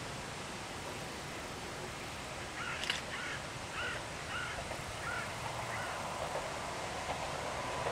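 A crow cawing about six times in quick succession over a steady outdoor hiss.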